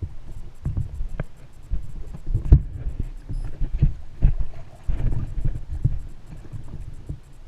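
Water sloshing and knocking against a small boat's hull, with irregular thumps and low wind rumble on the microphone.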